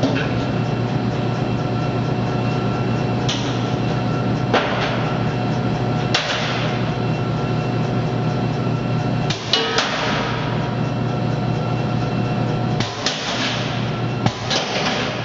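Metal sorting machine running with a steady hum, broken by sharp knocks at irregular intervals, a few of them trailing off briefly, as sorted metal pieces are thrown into the collection bins.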